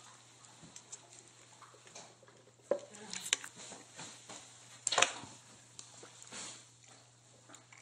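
Faint handling clicks from a paper coffee cup with a plastic lid, then a sharp knock about five seconds in as the cup is set down on a stone countertop. A faint steady low hum lies underneath.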